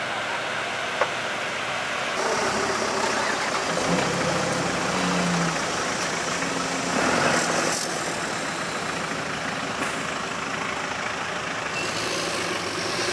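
Off-road 4x4 engines running steadily at idle, with a noisy outdoor hiss over them. The sound changes abruptly about two seconds in.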